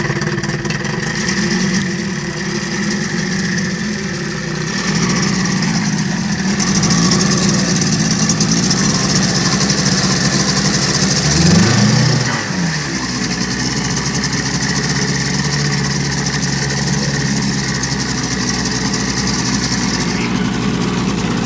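1977 Evinrude 9.9 hp two-cylinder two-stroke outboard motor running in a barrel of water. About halfway through it is revved up briefly and drops back to a steady idle.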